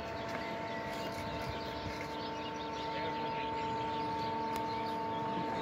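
Boat crane's hoist motor running with a steady, many-pitched hum as it lifts a small boat on slings, with a few bird chirps over it.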